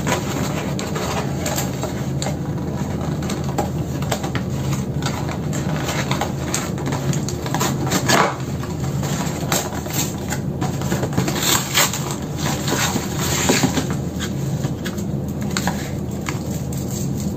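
Cardboard chocolate box being opened by hand, its flaps and contents rustling and clicking irregularly, then a chocolate's wrapper crinkling as it is unwrapped near the end. A steady low hum runs underneath.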